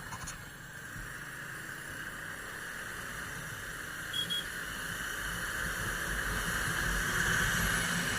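Steady wind and road noise from a moving motorcycle, with a low engine rumble underneath, growing louder over the last few seconds.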